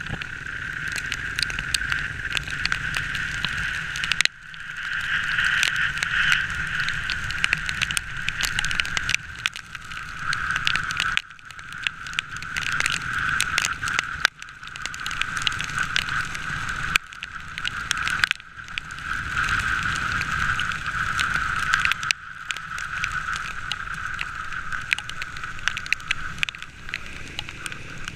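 Small motorcycle being ridden along a wet road, heard from a helmet-mounted camera: continuous wind and road noise with the engine underneath, with scattered clicks and crackles. The noise drops sharply for a moment several times and then builds again.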